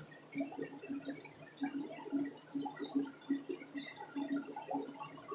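Aquarium water trickling and bubbling in a quick, irregular patter from the tanks' filtration.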